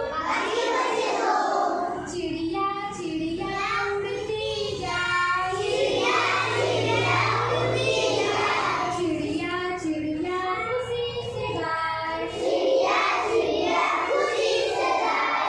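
Children singing a Hindi counting rhyme in sung phrases.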